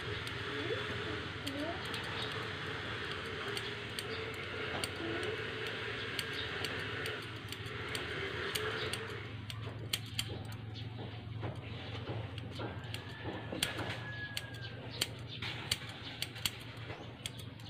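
Hair-cutting scissors snipping hair held over a comb, a long series of quick, sharp clicks, over a steady low hum.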